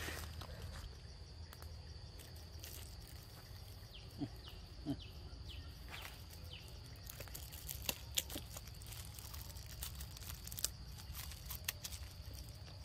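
Steady high-pitched insect drone of a tropical forest, with a run of short falling chirps in the middle and scattered soft taps and clicks.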